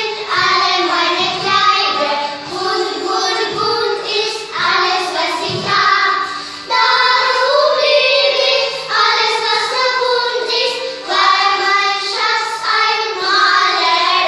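A small group of young girls singing a German song together, phrase after phrase with short breaks between lines.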